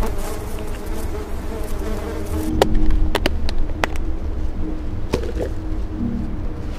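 A low, wavering buzz over a steady low rumble, with several sharp clicks about three to four seconds in.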